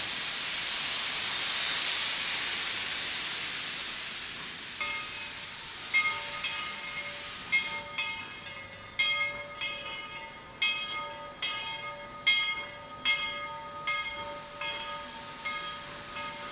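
Steam locomotive's cylinder cocks hissing loudly as it moves off. From about five seconds in, its bell rings steadily, roughly one strike a second, each strike ringing on into the next.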